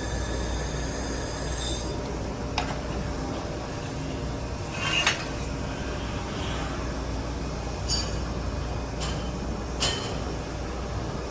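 Steady hum of an IPG LightWELD XR handheld laser welding system, with a high whine that stops about two seconds in, then a few sharp clicks and clinks.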